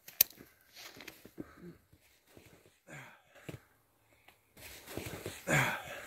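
A person breathing hard, out of breath after climbing a hill on snowshoes: quiet, uneven breaths, then a louder gasping breath near the end. Two sharp clicks right at the start.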